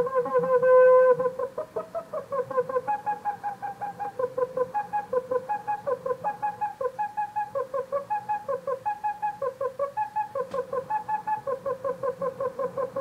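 Synthesized Hopf oscillator tone from a Pure Data patch, reedy and wind-instrument-like. It is held steady and loud for about the first second, then breaks into rapid choppy pulses, several a second, which now and then jump up to a higher note. There is one faint click about ten seconds in.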